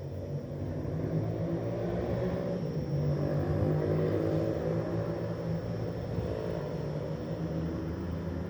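Steady engine drone that swells to its loudest about three to four seconds in, then eases off a little.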